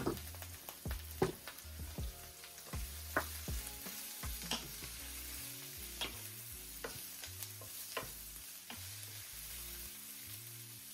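Sliced bell peppers and onions sautéing in oil in a white nonstick skillet with a soft sizzle, while a wooden spoon stirs them, knocking and scraping against the pan in scattered sharp ticks.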